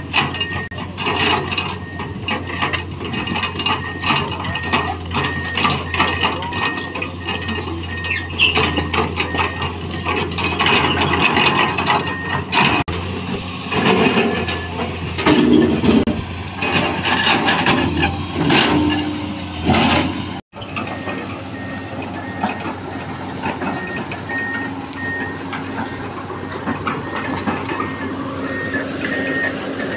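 Komatsu PC220 excavator's diesel engine running under work, its warning alarm sounding a steady series of high beeps that stops for a while midway and then resumes. Clanks and knocks of the machine and rocks come through over the engine.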